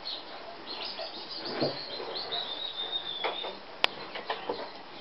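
Small birds chirping and twittering, with one held high whistle in the middle, over a few short yips and scuffles from Rottweiler puppies play-fighting; a single sharp click about four seconds in.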